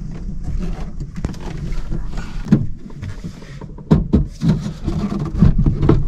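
Handling noise of a portable spot air conditioner being carried into a camper van and set down: low rumbling and bumps with several sharp knocks, the loudest about 1, 2.5 and 4 seconds in.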